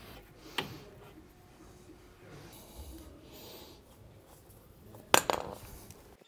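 Outer tie rod end being hand-threaded onto a steering rack's inner tie rod: faint rubbing and handling of the parts, a small click about half a second in, and a sharp knock about five seconds in.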